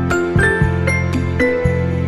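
Background music: a gentle instrumental track with bell-like chiming notes over a steady low bass, the notes changing every quarter to half second.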